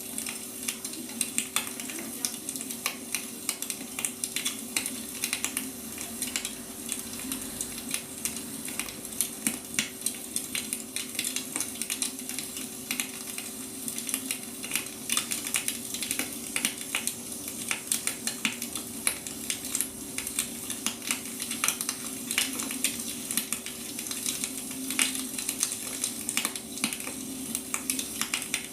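Wood fire crackling: a dense, irregular run of small pops and snaps, with a faint steady hum underneath.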